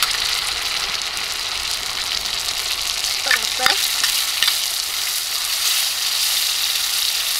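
Minced garlic and tomato sauce sizzling in hot oil in a steel wok, a steady high hiss. Near the end a metal ladle scrapes and stirs the sauce.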